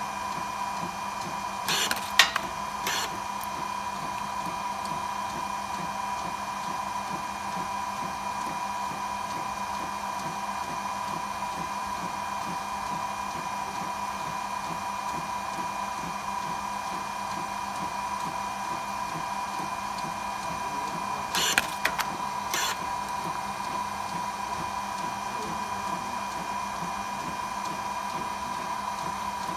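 Fujifilm Frontier-S DX100 inkjet photo printer running steadily as it prints 4x6 photos, a constant mechanical hum with a steady whine. About two seconds in, and again about two-thirds of the way through, there is a brief burst of clicks and rustling.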